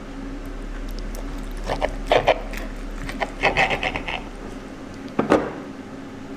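Knife and fork cutting through a fried egg and a hamburger steak, with a few short scrapes of the cutlery against the plate over a steady low hum.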